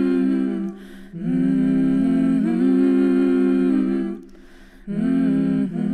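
A voice humming a slow melody in long held notes, stepping between pitches and breaking off briefly twice, about a second in and again past the four-second mark.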